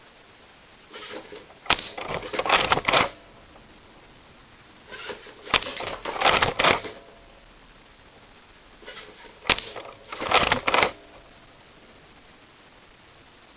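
Toy gun and target range clicking and rattling in three bursts about four seconds apart, each a sharp click followed by about a second of plastic clatter, over a faint steady high-pitched tone.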